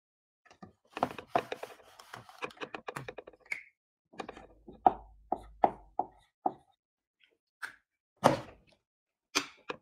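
A run of knocks, taps and clicks from a small handheld whiteboard being handled and picked up: a dense patter of small taps for a couple of seconds, then about six separate sharp knocks, and two more near the end.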